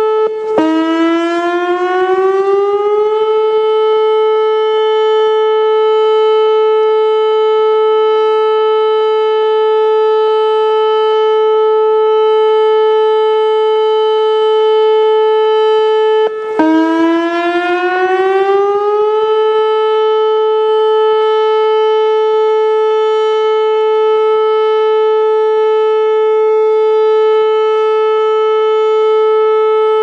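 Whelen 2906 electronic outdoor warning siren sounding a loud, steady tone in a test. About half a second in and again about halfway through, the tone briefly cuts out, then slides back up to full pitch over about three seconds.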